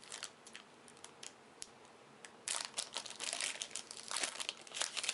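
A trading-card booster pack wrapper being handled and opened: a few light clicks, then dense crinkling from about halfway in.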